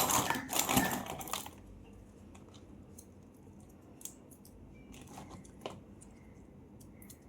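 Plastic candy wrapper crinkling and tearing for about the first second and a half, then a few faint scattered clicks and taps as the sweets are handled.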